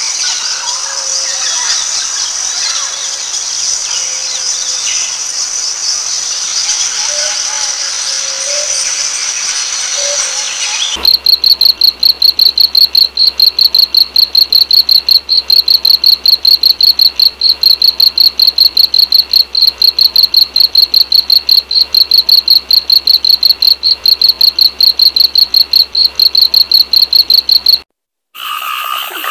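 Steady, high-pitched insect-like buzzing for about the first eleven seconds. Then a loud, fast, high-pitched chirping of about four pulses a second takes over and cuts off suddenly near the end.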